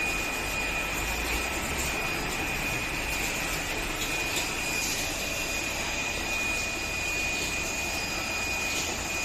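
Steady machine noise: an even rushing hum with a constant high-pitched whine over it, unchanging throughout.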